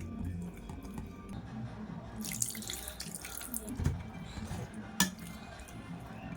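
A short splash of running water, as from a kitchen tap, about two seconds in, then a sharp click, over soft background music.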